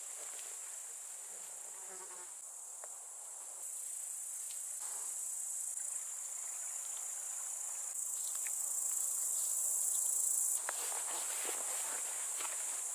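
Steady high-pitched chirring of crickets in summer grass, getting louder in steps, with faint rustling footsteps through the grass.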